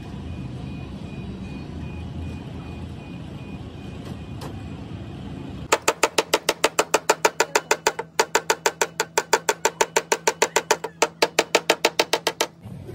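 Hammer tapping rapidly on a car's sheet-metal rear quarter panel to work out a dent, about six ringing strikes a second, starting about halfway through with a brief pause. Before it, only a low steady rumble.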